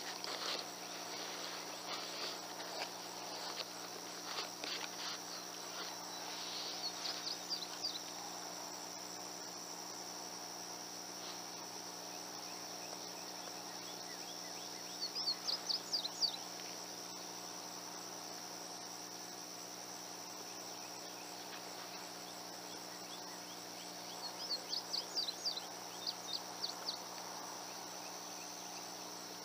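Field insects giving a steady, high, unbroken drone. Scattered chirps come over it early on, and two short bursts of rapid high chirps, one about halfway through and one near the end.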